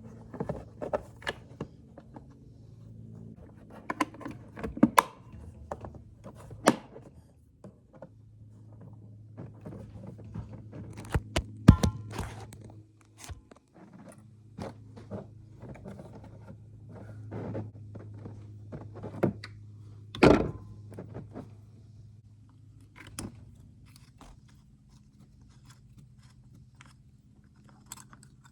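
Scattered clicks, taps and knocks of tools and small metal parts being handled while a generator's carburetor is refitted, the sharpest knocks about a third and two thirds of the way in. A faint steady low hum runs underneath.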